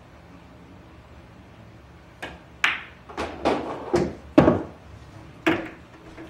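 Pool balls clicking and knocking against one another and the table: about eight sharp clacks over three seconds, starting about two seconds in.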